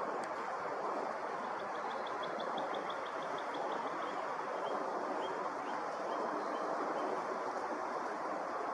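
A steady rushing background noise. Over it, a small bird gives a rapid high trill of short notes about a second and a half in, then scattered single high notes.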